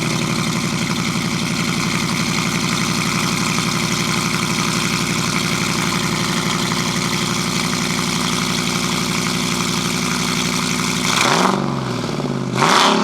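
Modified 2007 Jeep Grand Cherokee SRT8's 6.1-litre Hemi V8 with a custom exhaust, idling steadily with a deep note, then blipped twice near the end, the pitch rising and falling with each rev.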